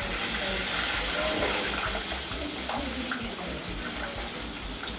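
Shrimp frying in hot oil in a pan on a gas range: a loud, steady sizzle that swells about a second in and eases off toward the end.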